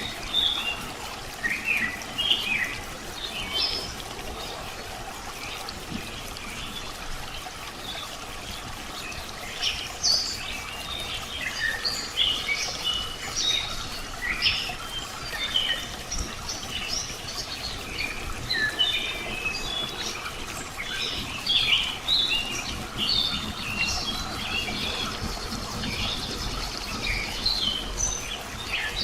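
Many small songbirds chirping and calling in quick, short high notes over a steady trickle of running water. The calling thins out for a few seconds, then grows busier.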